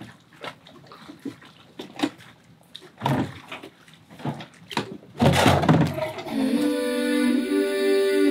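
Scattered light knocks and clunks from someone working on the deck of a sailboat moored in a marina slip, then a loud rushing noise about five seconds in. About six seconds in, music with long sustained droning tones begins.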